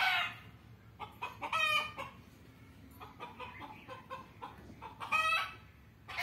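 Chickens clucking: three louder, rough calls, near the start, about a second and a half in, and about five seconds in, with a run of short, quiet clucks between them.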